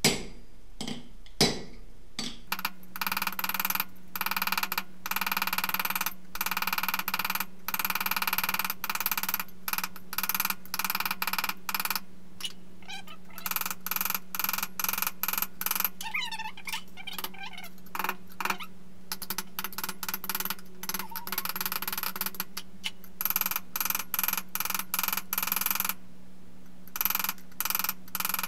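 A 2-pound peen hammer striking stainless steel sheet on an anvil in rapid repeated blows, the sheet ringing after each one, with short pauses as the piece is turned; this is the peening that shapes the dome of a buckler. A steady low hum runs underneath.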